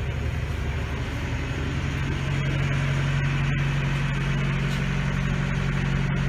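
A sailing yacht's inboard engine running steadily while motoring with no wind. It makes a constant low drone with a strong hum, heard from inside the cabin.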